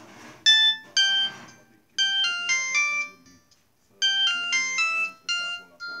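Samsung GT-E1080 ringtone playing from the small speaker of a Samsung E1360B mobile phone: a short melody of bright electronic beep-like notes, its phrase played twice about two seconds apart, ending on a few repeated notes.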